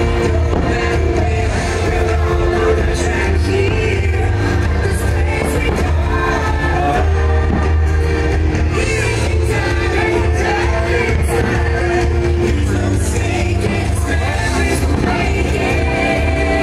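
Pop music with a sung vocal over a strong, steady bass.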